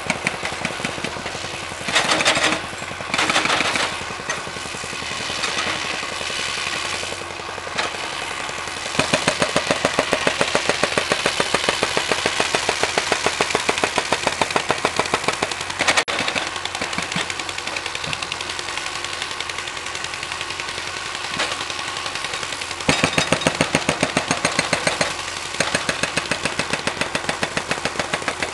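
Small engine of a hydraulic power unit running with a steady rapid beat, over the hiss of a gas torch heating a rail joint for welding. The beat grows louder for several seconds about a third of the way in, and again briefly near the end.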